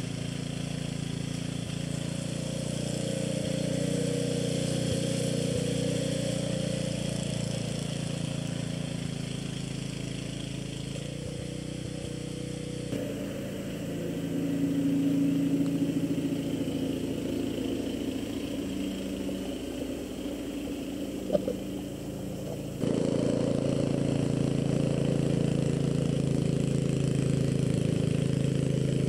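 Walk-behind snowblower's small engine running steadily under load as it clears deep snow. For about ten seconds in the middle it sounds muffled, as if heard through a window from indoors, with one sharp knock near the end of that stretch.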